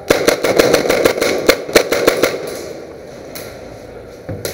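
Airsoft guns firing: a rapid string of about a dozen sharp shots over roughly two seconds, echoing in a large empty room, then two single shots near the end.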